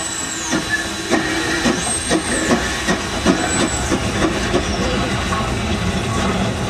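Steam tank locomotive moving slowly: a steady hiss of steam with regular chuffs or knocks of the running gear, about two or three a second, and a few brief high thin squeals above them.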